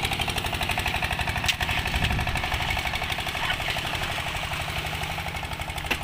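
Boat engine running steadily with a rapid, even chugging beat.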